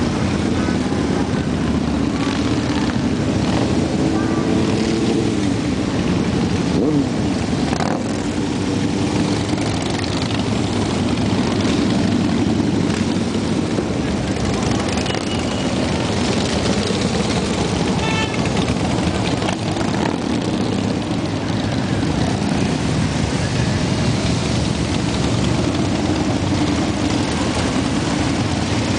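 A procession of cruiser and touring motorcycles riding past one after another, their engines making a steady, continuous din. Individual bikes swell and fade as they pass, one with a note dropping in pitch about seven seconds in.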